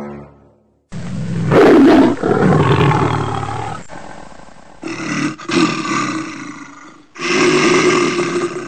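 A big cat roaring three times in long, loud roars, the first the strongest; a roar sound effect laid over the jungle-safari intro.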